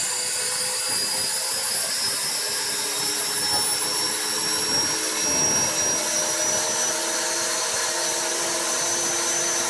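Skya 450 V3 RC helicopter running with a very high-pitched whine over its rotor and drive noise, the whine creeping slightly upward in pitch. Its cause is unknown; the owner suspects the main gear, a loose belt, or the motor. A brief lower sweep about five seconds in.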